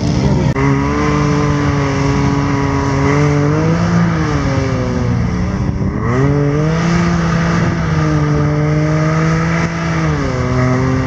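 Side-by-side UTV engine held at high revs under load in swamp mud. Its pitch stays steady, dips briefly about four and six seconds in, then drops near the end.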